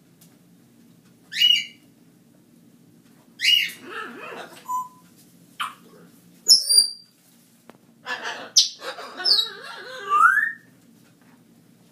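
A parrot calling: a string of short whistles and squawks, several sliding down in pitch, with a busier run of calls in the last few seconds that ends on a rising whistle.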